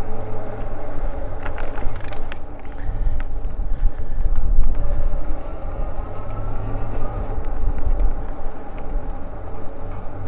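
Eahora Juliet e-bike riding along a paved trail: a steady rumble of tyres on asphalt and wind buffeting the microphone, with a few light clicks about two seconds in and a faint whine rising in pitch a little past the middle.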